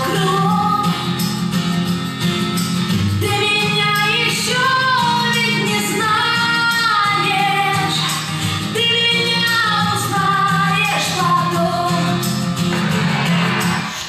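A recorded song with a woman singing a slow melody over a sustained accompaniment, played as the backing track for a stage dance.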